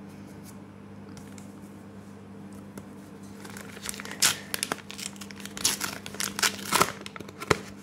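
A Pokémon card booster wrapper being torn open and crinkled by hand: a run of irregular crinkling and tearing noises starting about halfway through, over a faint steady hum.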